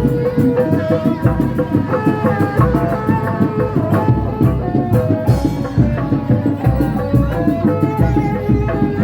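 Kuda lumping ensemble music: hand drums play a busy, driving rhythm with a deep beat about once a second, under a melody of held notes that step up and down.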